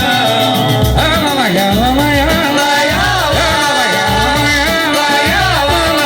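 Samba band music without words: a steady low bass pulse under a melody line that glides up and down.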